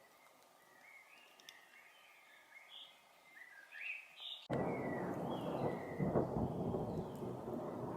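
A songbird sings short, repeated chirping phrases. About four and a half seconds in, a loud rumble of thunder starts abruptly and rolls on while the bird keeps singing.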